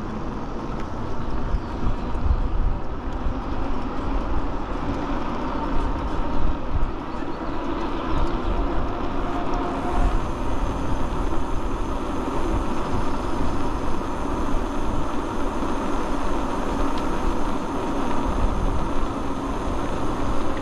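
Wind buffeting a handlebar-mounted microphone, over the steady rumble of tyres on asphalt, as a Ride1Up Cafe Cruiser e-bike rides along at speed.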